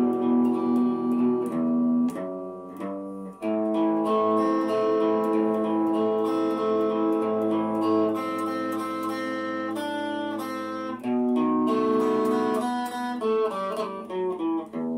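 Slow instrumental guitar music, a melody of held notes. The music drops back briefly about three seconds in, and the notes come quicker near the end.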